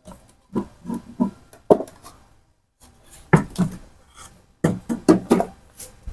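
Metal housing parts of a 1 HP electric water pump knocking and clicking as the motor's stator housing is worked by hand onto the pump body: a series of irregular knocks, the loudest about halfway through and again near the end.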